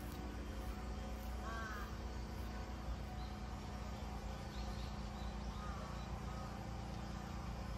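A crow cawing twice, short arched calls about four seconds apart, over a steady low hum.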